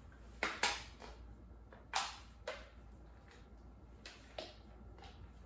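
A few light clicks and knocks, about five scattered through a quiet room, as an electric fan's power cord and plug are handled before being plugged in.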